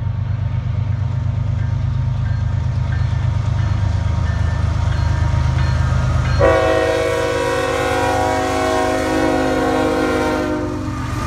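Canadian National diesel freight locomotive approaching with a heavy low engine rumble. About six seconds in, as it draws alongside, its air horn sounds one long chord of several notes for about four seconds, then stops.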